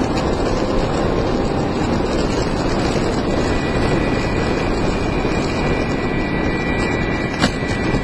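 Electric longboard rolling on asphalt: a steady rumble of the wheels on the road with wind on the microphone. A thin steady high whine comes in about three seconds in, and there is a single sharp click near the end.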